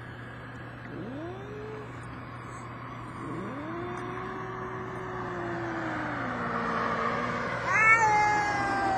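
Two tomcats yowling at each other in a standoff. A short rising yowl comes about a second in, then a long, low, drawn-out yowl. Near the end a louder, higher yowl rises and holds. A steady low hum runs underneath.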